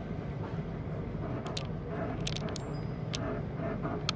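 Steady low rumble of distant city road traffic. A few sharp clicks come in the middle and near the end.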